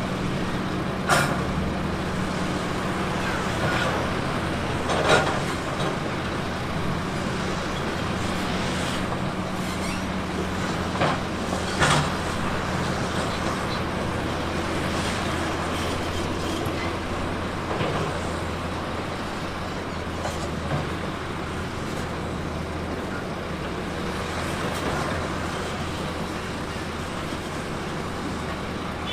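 Heavy earthmoving machine's diesel engine running steadily, with a few sharp knocks about 1, 5 and 12 seconds in.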